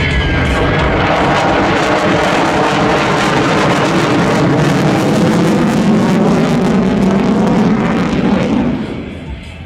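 Jet fighter flying past during an air display: a loud engine roar that builds, holds, then falls away sharply near the end.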